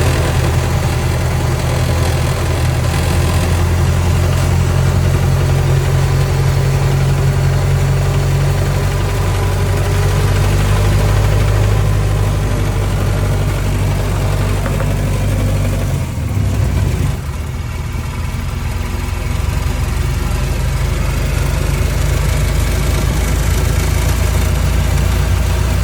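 1923 Model T Ford's four-cylinder engine running steadily under load, climbing a steep hill in low gear. About two-thirds of the way through the engine note briefly dips and changes.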